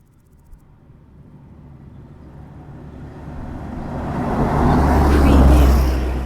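A bus passing on a road. Its engine rumble and tyre noise grow steadily louder as it approaches, peak about five and a half seconds in as it goes by, then begin to fade.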